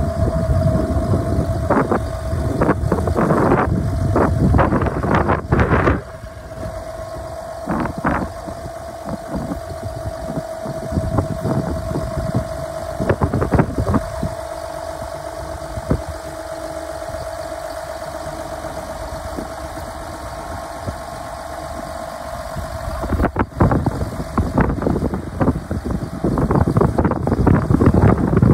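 A 2003 John Deere 7320 tractor's six-cylinder diesel engine idling steadily, with a steady whine over it. Gusts of wind buffet the microphone for the first six seconds or so and again near the end.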